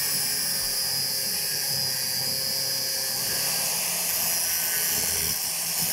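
Angle grinder grinding metal: the disc runs against the workpiece with a steady hiss that holds evenly throughout.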